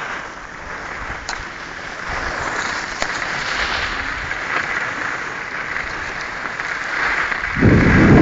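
Skis hissing and scraping over hard-packed groomed snow as the skier slides downhill, a steady rushing noise. Near the end a much louder low rumble comes in.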